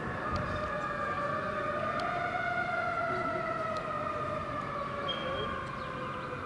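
Emergency vehicle siren on a slow wail, its pitch drifting gradually up and down, from fire apparatus responding to a call.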